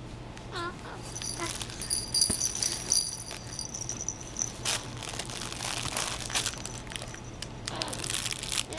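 Soft fabric baby blocks being shaken and handled, the bells inside them jingling for a few seconds, along with crinkling and rattling from the blocks. A baby coos briefly near the start and starts to babble near the end.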